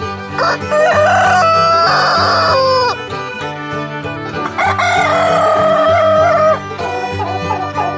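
Rooster crowing twice, each crow a long call of about two seconds, over background music.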